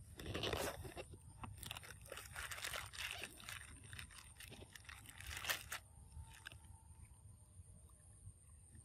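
A macaque biting into and chewing a piece of orange fruit: a quick run of crunching chews for about the first six seconds, then only a few faint ones.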